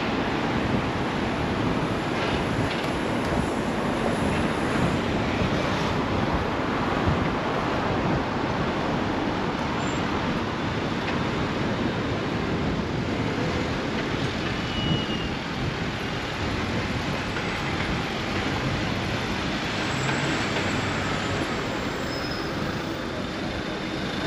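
Steady traffic and road noise heard from a moving bicycle, a dense even rush that runs on without breaks.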